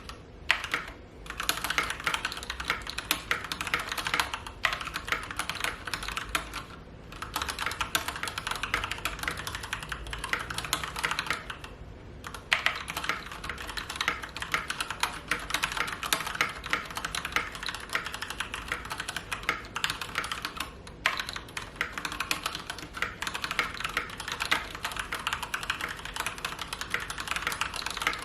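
Fast continuous typing on a mechanical keyboard with Gateron Pink linear switches (45 gf, no tactile bump), the keystrokes clacking densely in long runs broken by brief pauses.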